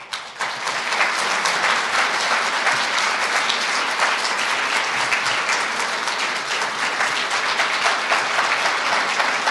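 A large audience applauding. The clapping breaks out all at once and holds steady, a dense even patter of many hands.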